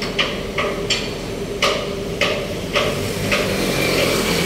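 A series of sharp knocks, about two a second, over a steady hum, with a broad rumble of traffic building near the end.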